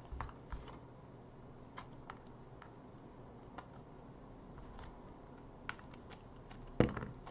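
Faint, irregular small clicks and ticks as an opening tool is worked along the edge of an iPhone 6s Plus to break the heat-softened adhesive seal of the screen. One sharper click comes near the end.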